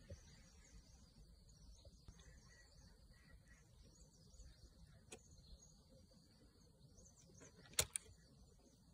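Near silence with faint outdoor background and a few faint bird chirps, broken near the end by two sharp clicks in quick succession as a bare optical fibre is set into the clamps of a Fujikura 33S fusion splicer, with a smaller click about five seconds in.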